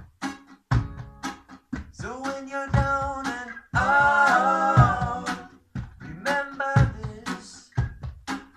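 Background music: a song with sung vocals over a steady drum beat, with one long held sung note about four seconds in.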